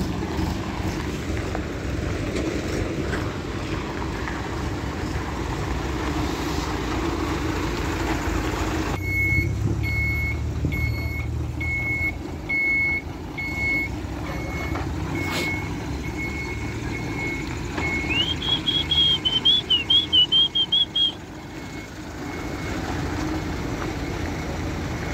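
Diesel truck engine running, joined about a third of the way in by a truck's reversing alarm beeping at an even pace. Near the end of the beeping a warbling, pulsing electronic tone sounds for about three seconds.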